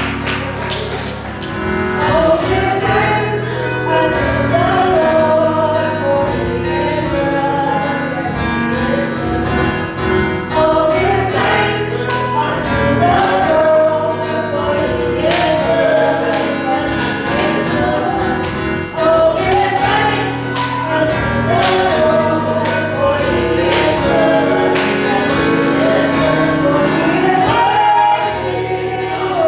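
Gospel choir singing with instrumental accompaniment that carries a recurring beat.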